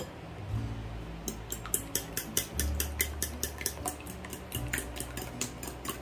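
A metal fork whisks raw eggs in a ceramic bowl: a fast run of light clicks of the tines against the bowl, about six a second, starting about a second in. A single sharp knock comes at the very start.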